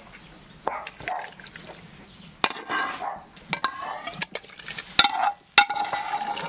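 Metal ladle scraping and knocking against a frying pan, scooping fried tomato-and-carrot borscht dressing into an aluminium pot. There are a string of sharp clinks and scrapes, with a thin ringing scrape near the end.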